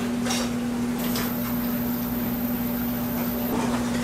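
Steady hum of restaurant kitchen equipment, with a few soft rustles and taps in the first second or so as hands scatter shredded cheese over pizza dough.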